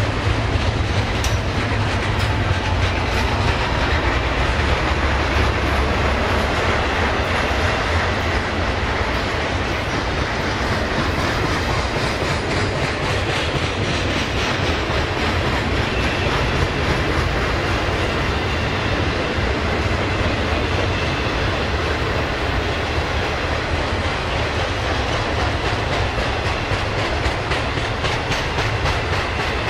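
Double-stack intermodal freight train's well cars rolling past at steady speed, a continuous low rumble with wheels clicking over the rail joints.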